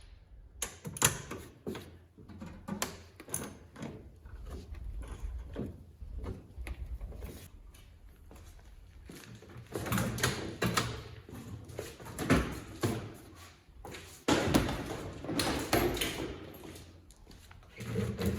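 Irregular clanks, knocks and rattles of tools and metal car parts being handled while a car is dismantled, with a few sharp loud knocks among them.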